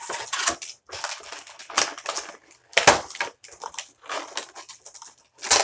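Stiff clear plastic blister packaging crackling and snapping as it is bent and pried open by hand, in irregular crackles with a few sharp cracks, the loudest near the end.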